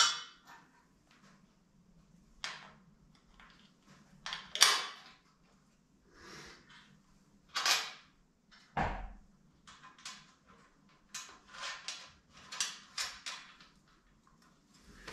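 Hand tools and steel washers and nuts clinking and knocking against metal as a bracket is bolted onto a tractor frame: a sharp click at the start, scattered knocks, one dull thump, and a quicker run of clicks near the end.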